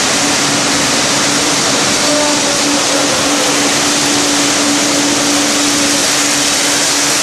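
Automatic candy wrapping machine running: a loud, steady mechanical hiss with a steady hum under it and no separate strokes standing out.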